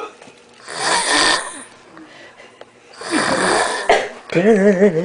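A sleeping man snoring with a raspy, hissing breath of the kind likened to Darth Vader's breathing: two long snores about two seconds apart. Near the end a wavering voiced sound follows.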